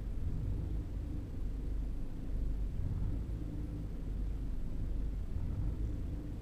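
2011 Ford EcoBoost engine idling rough: a low, uneven rumble that swells and dips slightly. The unsteadiness comes from the engine itself, not from the throttle pedal.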